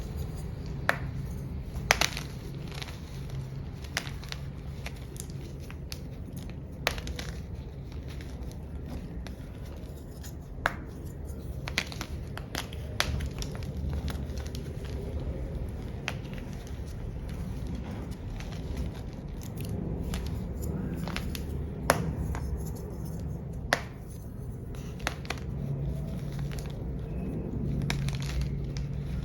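A block of black-dyed gym chalk being crushed: irregular sharp cracks and crunches over soft crumbling and scraping, with a low steady hum underneath.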